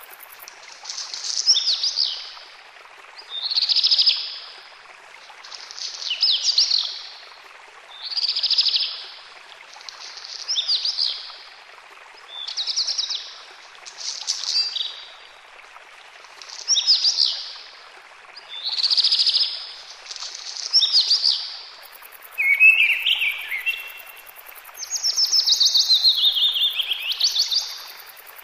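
Songbird singing short, high phrases about every two seconds over a steady background hiss; near the end the song changes to a lower phrase and then a longer run of falling notes.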